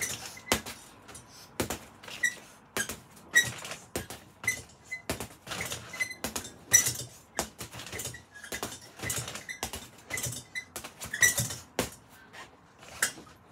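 Boxing gloves punching a hanging heavy bag: an irregular run of smacks, about one or two a second, many with a short metallic clink from the bag's hanging hook and bracket. The hits thin out near the end.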